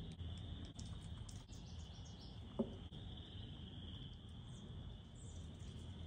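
Nature ambience: an insect chorus of crickets trilling in one steady high band, with faint high bird chirps now and then and a short low sound about two and a half seconds in.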